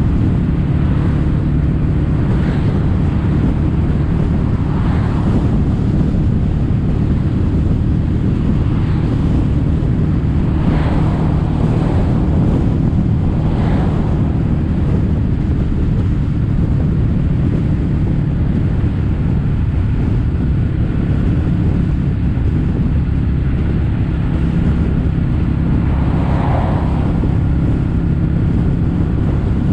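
Kawasaki W800's air-cooled parallel-twin engine running at a steady cruise through stainless-steel caberton-style silencers, with wind noise on the microphone. A few brief whooshes swell over the engine note.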